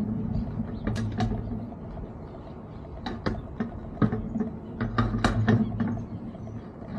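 Several sharp metal knocks and clinks as a steel lattice tower section is handled and fitted by hand onto the tower top, over a steady low hum.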